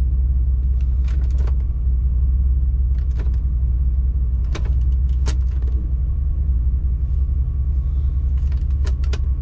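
2004 Ford F150's newly installed engine idling steadily, a low, even rumble, with several short sharp clicks scattered over it.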